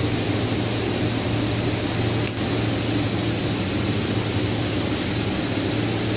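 Steady mechanical hum of factory machinery, with a constant high whine over a low drone. A single short click comes a little over two seconds in.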